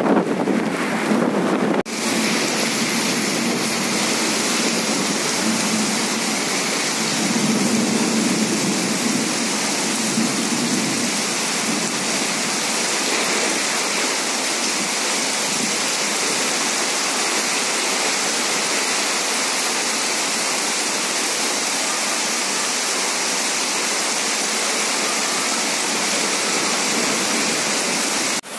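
Heavy rain pouring down steadily as an even, dense hiss, with a brief break about two seconds in.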